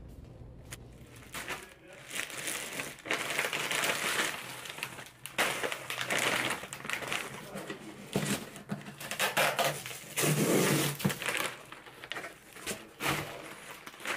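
Irregular crinkling and rustling, in uneven bursts.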